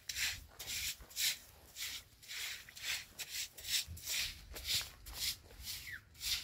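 Footsteps scuffing and crunching on dry, stony dirt at a steady walking pace, about two steps a second.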